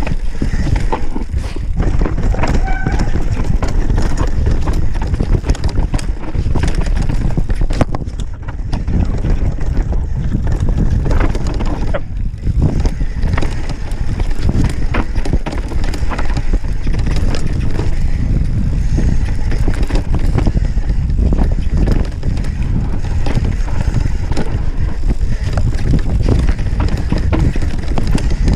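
Mountain bike descending a dirt trail fast: wind buffets the chest-mounted camera's microphone while the tyres run over dirt and the bike rattles and clatters in frequent sharp knocks over bumps and roots.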